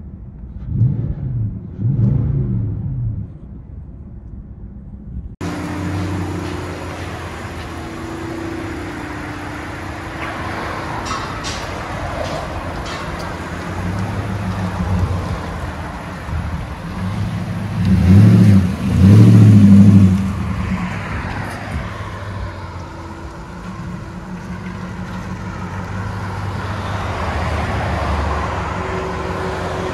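2018 Nissan Titan's 5.6-litre V8 with a 14-inch Magnaflow muffler, first blipped twice from inside the cab. After a cut it runs outside, with two loud revs near the middle as the truck moves off, then a steady deep drone.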